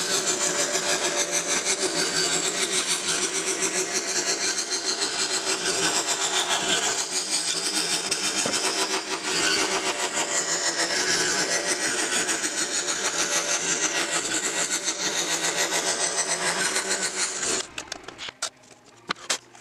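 Scroll saw running, its fine blade stroking up and down very rapidly as it cuts through a thin wooden board. The saw stops near the end.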